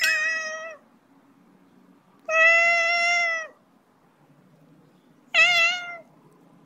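Tabby kitten meowing three times: a short call at the start, a longer held call about two seconds in, and a shorter call with a wavering pitch near the end.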